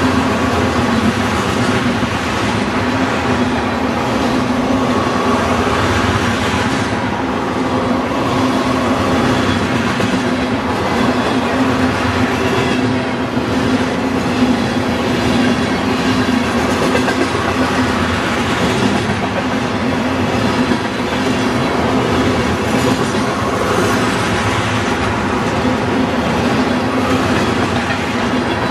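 Freight train of tank cars rolling past at speed: a steady rumble and clatter of steel wheels over the rails, with a constant low hum beneath it.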